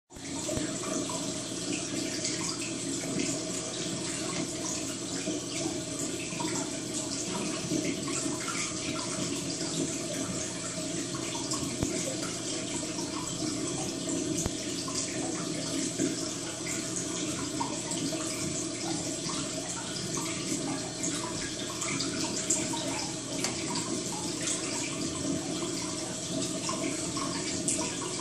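Steady trickling of running water from off-picture, with many small splashes and a steady low hum underneath.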